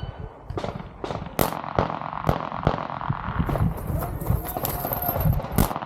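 String of pistol shots during a timed IDPA course of fire: sharp reports at uneven spacing, roughly a dozen, the loudest about a second and a half in and near the end.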